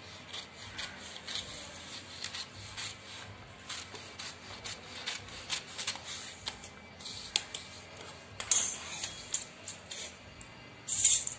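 Large steel tailoring scissors snipping through a newspaper pattern, a run of short crisp cuts while the armhole is cut out. Paper rustles between the cuts, loudest twice near the end.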